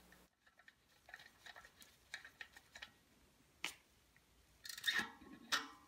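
Faint scattered clicks and light metal taps as a bicycle rear hub's end cap and freehub body are handled and worked loose by gloved hands. A sharper click comes about three and a half seconds in, and a short run of louder clicks and rattles comes near the end.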